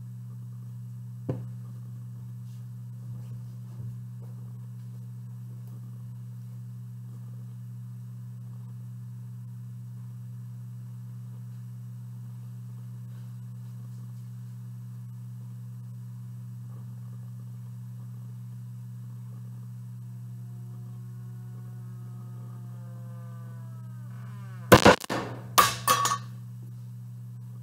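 Hydrogen burning at the top hole of a syrup tin gives a whistle that rises in pitch for about four seconds, as air drawn in through the bottom hole dilutes the hydrogen inside. The hydrogen–air mixture in the tin then explodes with a sharp loud bang, followed by a few more knocks about a second later.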